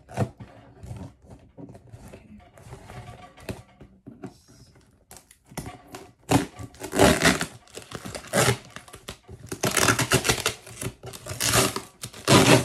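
Plastic and paper packing material tearing and crinkling as it is pulled out of a cardboard box. Soft rustling at first, then a run of loud tearing, crinkling bursts from about halfway through.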